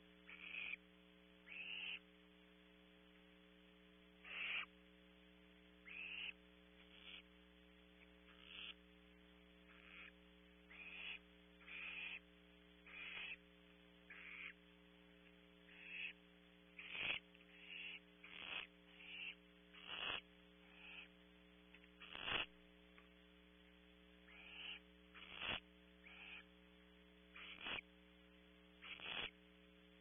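Barn owl owlets hissing: short rasping hiss bursts every second or two, coming faster and louder in the second half, over a steady electrical hum.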